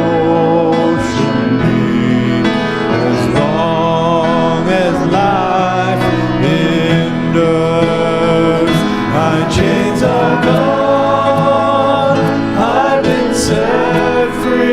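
Worship music: singing over a steady instrumental accompaniment, in a gospel-style hymn arrangement.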